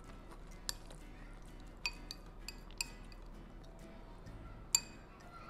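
Metal spoon clinking against a glass bowl while mixing and scooping rajma and rice: a handful of sharp, ringing clinks spread over several seconds, the loudest near the end.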